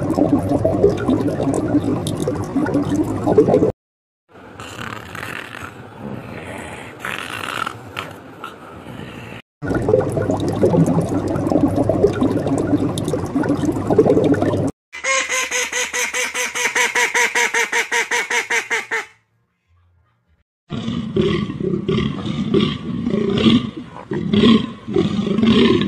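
A string of separate animal sound clips, each a few seconds long, with short silent gaps between them. First come low, rough calls, then a quieter stretch and more low calls, then a fast, even pulsing trill, and last a run of repeated pitched calls.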